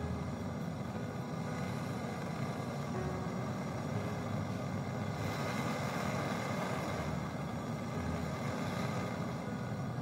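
Gas brazing torch burning with a steady rushing noise while a copper pipe joint on a refrigerator compressor is heated and brazed with filler rod.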